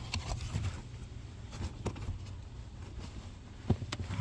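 Scattered light clicks, taps and rustles from handling things inside a car, with a sharper knock about three and a half seconds in, over a steady low hum.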